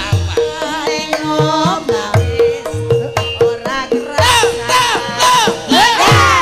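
Javanese gamelan music: kendang hand-drum strokes in a steady rhythm over ringing bronze metallophone tones. From about four seconds in, voices sing loudly over it.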